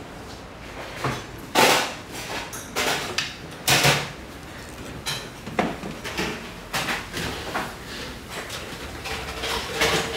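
Restaurant clatter: a run of knocks, bangs and scrapes, several loud ones in the first four seconds and smaller ones after.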